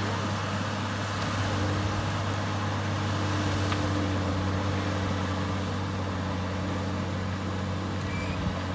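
Tractor engine running steadily under load as it drives a rotary tiller through weeds and soil: a constant drone with a deep hum under the churning noise of the tiller.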